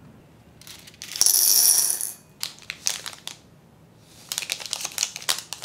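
Handling noise of a candy kit: a loud, brief rustle about a second in, a few sharp crackles, then dense crinkling of a chocolate bar's foil wrapper as the bar is slid out of it.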